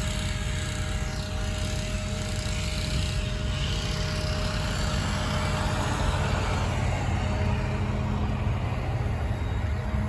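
Bucket truck's engine running steadily with a low drone, driving the aerial lift. A broad rushing noise swells and fades in the middle, like a car going by.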